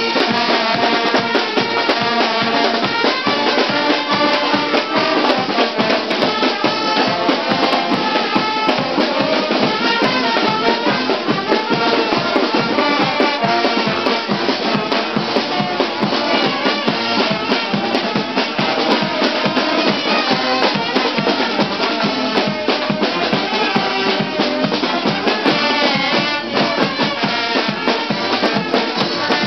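Brass band playing loudly: trumpets and sousaphones over a steady drum beat.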